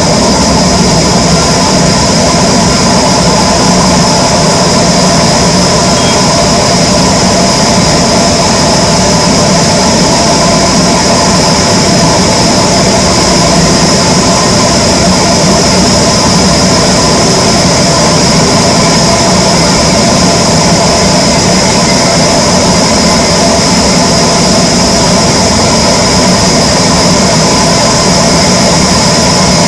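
Wood-cutting saw machinery running steadily: a loud, unchanging hum with a high whine over it, with no rise or fall.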